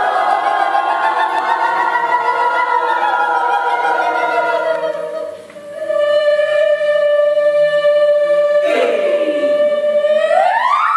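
Mixed youth choir singing: a sustained, shifting chord for about five seconds, then after a brief dip a single note held steady. About nine seconds in, voices slide down in pitch beneath the held note, and near the end the note sweeps upward.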